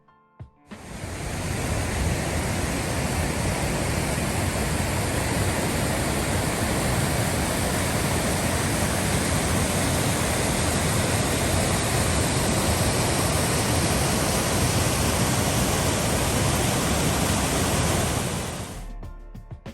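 Waterfall rushing: a steady, loud roar of falling water that fades in about a second in and fades out near the end.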